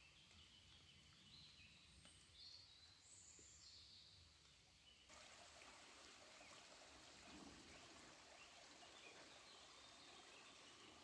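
Near silence: faint woodland ambience with a few short bird chirps in the first half, then, from about halfway, a steady faint hiss.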